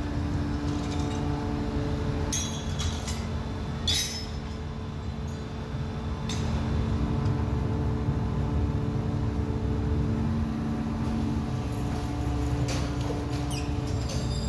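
Steady hum of workshop machinery, with a few sharp metallic clinks of scrap metal being handled, one about four seconds in the loudest.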